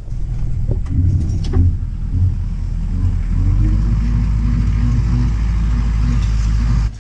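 A vehicle engine running steadily while driving, with a few knocks and rattles in the first two seconds. It grows louder about three seconds in and cuts off abruptly near the end.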